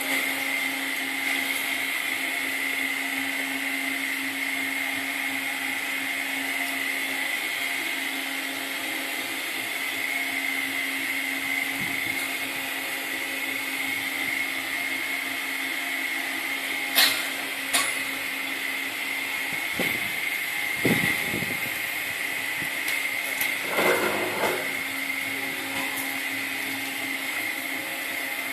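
Klenco Cyclone S510 low-speed single-disc floor polisher running steadily while polishing a marble floor: a constant motor hum with a steady high whine over a hiss. A few short sharp clicks come about two-thirds of the way through.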